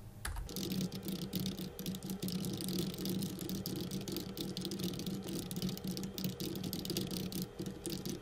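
Computer keyboard typing, fast-forwarded into a dense, rapid clatter of keystrokes over a steady low hum, starting about half a second in.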